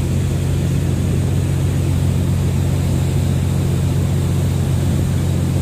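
Steady low machinery drone, an engine or generator running at an even speed.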